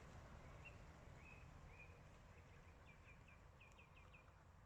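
Faint birdsong: a small bird gives a few short single notes, then a quick run of short falling chirps about three seconds in, over a faint low rumble.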